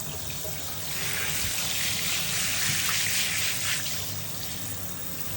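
Running water from a tap splashing and trickling over a tegu lizard being bathed, growing louder for a few seconds about a second in, then easing off.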